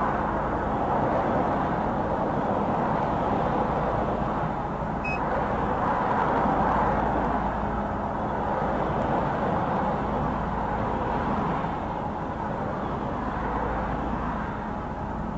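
Steady car noise, a vehicle running with a continuous even rush, and a single short high beep about five seconds in.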